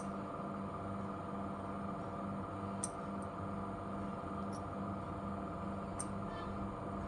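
A steady electrical-sounding hum with a regularly pulsing low tone, and a few faint, light clicks as tiny gold craft stones are handled and pressed onto a hair clip.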